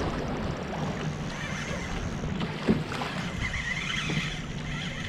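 Water lapping against a fishing kayak's hull with wind on the microphone, over a steady low hum. A single knock a little under three seconds in.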